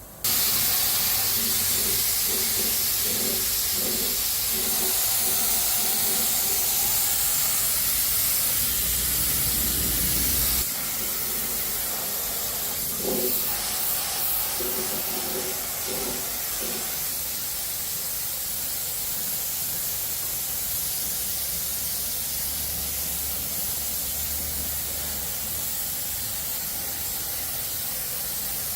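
A loud, steady spraying hiss that starts suddenly and drops slightly in level about ten seconds in.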